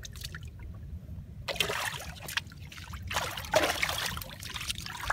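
Hands splashing and sloshing through shallow muddy water while groping for fish, in a short burst about a second and a half in and a longer stretch from about three seconds.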